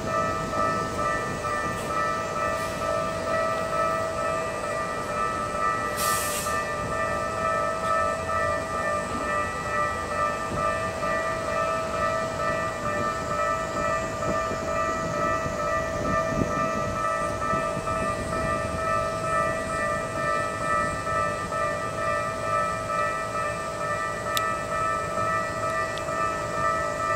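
Japanese railway level-crossing warning bell ringing in a steady repeating electronic clang, about two strokes a second, the signal that a train is approaching. There is a short hiss about six seconds in.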